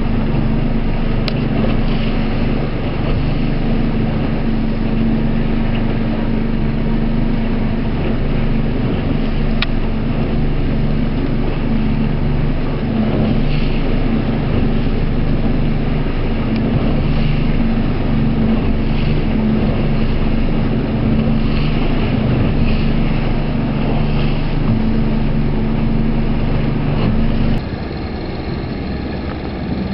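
Motorboat engine running steadily at constant speed, a low hum with noise over it. Near the end it cuts abruptly to a quieter, slightly different engine drone.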